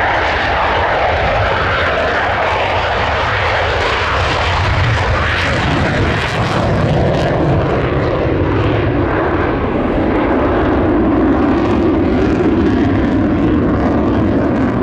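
F-16 fighter jet taking off and pulling up into a climb on afterburner: a loud, continuous jet roar with a crackling edge about midway that shifts in tone as the jet climbs away.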